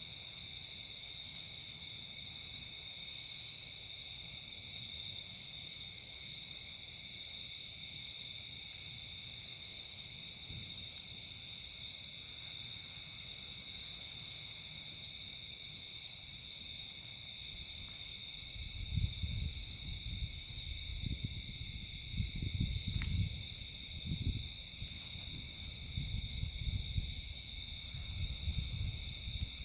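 Steady chorus of crickets and other insects chirring. From a little past halfway, irregular low rumbling gusts buffet the microphone.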